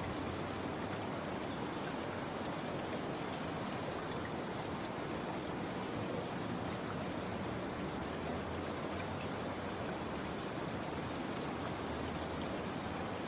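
Steady rain, an even patter with no pauses or changes.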